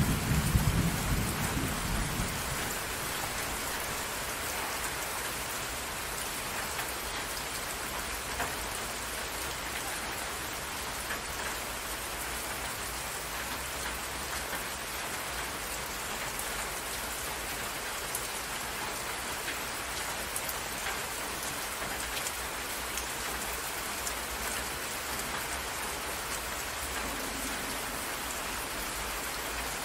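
Steady rain falling, with drops hitting a water surface. A low rumble of thunder fades out in the first two seconds.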